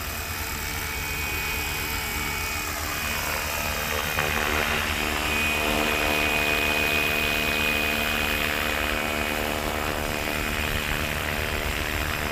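FW450 450-size electric RC helicopter in flight: the steady whine of its motor and rotor, growing slightly louder around the middle as it passes close.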